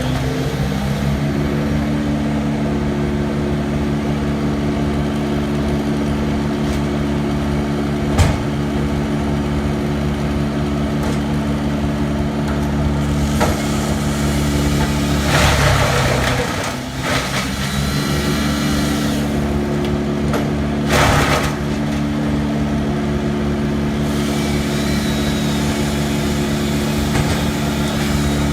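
Engine of a tree-cutting machine running steadily, with a sharp knock about eight seconds in. Two short bursts of noisy crackling come around the middle, and during the first of them the engine note sags briefly, then recovers.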